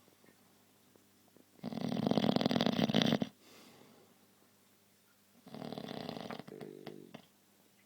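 Two long, rattling snores, each about a second and a half with a pause between, the first louder; a buzzing snore like a motorbike.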